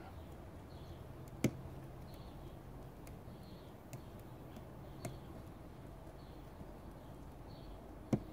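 Fingers pinching and snapping bits of scale foliage off a Chinese juniper shoot: a few sharp little clicks, about a second and a half, five and eight seconds in, over a quiet background.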